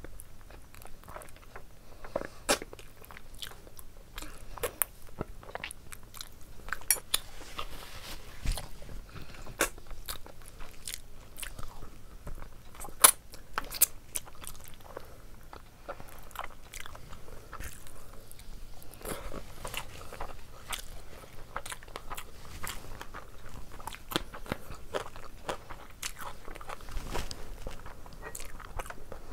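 Close-miked eating sounds of a person chewing and biting into curried meat on the bone, taken by hand: wet mouth sounds broken by many sharp crunches and clicks.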